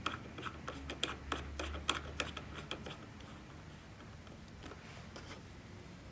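Light irregular clicks and taps of a massage chair's remote controller and its bolt being tightened onto the ball mount, a dozen or so in the first three seconds, then only faint room tone.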